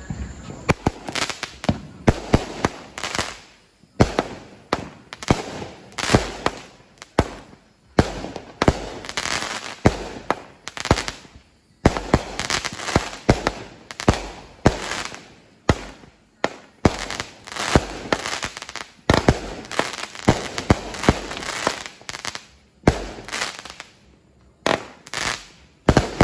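Consumer multi-shot firework cake firing a long volley: shot after shot, about two a second, each launch followed by aerial bursts and crackle, with short lulls every few seconds.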